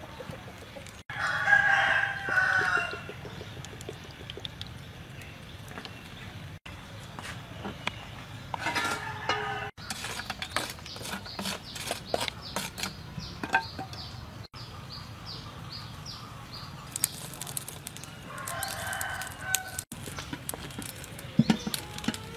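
A rooster crowing three times: the loudest crow near the start, another about midway and a third toward the end. Light clicks and knocks are heard between the crows.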